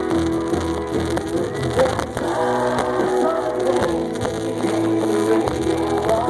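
Live country band playing an instrumental passage with no singing, guitars to the fore over bass and drums.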